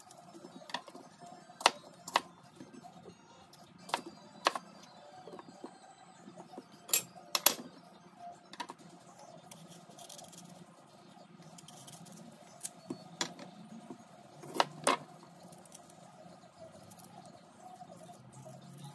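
Kitchen knife clicking and knocking against a plastic cutting board and crisp fruit while an apple and an Asian pear are cut up by hand: sharp, irregular clicks, several in quick pairs, over faint background music.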